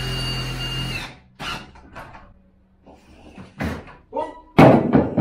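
Cordless drill-driver whirring for about a second as it drives into the trunking and timber wall, then stopping. A few short knocks follow, and a loud thump comes near the end.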